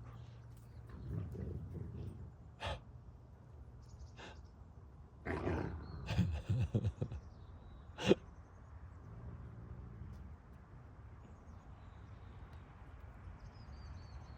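Wolves growling and snarling in several short bouts, with the sharpest and loudest about eight seconds in.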